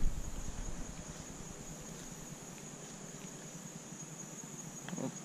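Steady high-pitched insect chorus, a constant trill of crickets. A low rumble fades out over the first second, and one short sound comes about five seconds in.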